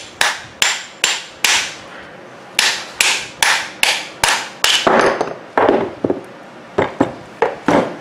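Chipping hammer striking the welded seams of a microwave oven transformer's steel core: a quick run of sharp metallic knocks, each with a short ring, about two to three a second, with a brief pause about two seconds in. The blows break the welds that hold the transformer's bottom plate.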